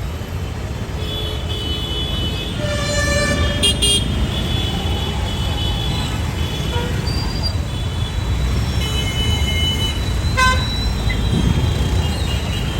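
Heavy city road traffic: a steady rumble of engines and tyres with vehicle horns honking several times, in clusters about a second in and again near two-thirds through.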